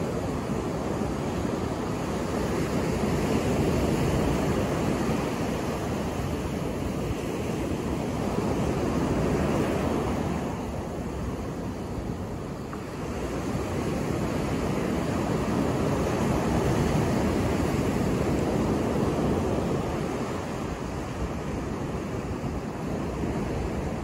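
Ocean surf breaking and washing up a sandy beach, swelling and easing in slow surges several seconds apart.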